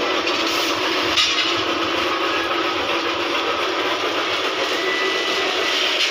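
Machinery running in a puffed-rice factory: a loud, steady mechanical rushing noise that holds level.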